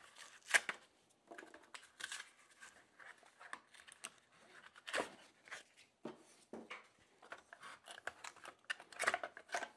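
Folded cardboard packing being worked off a 3D printer's tool head by hand: faint, irregular scrapes, rustles and small taps of cardboard, with sharper clicks about five seconds in and again near the end.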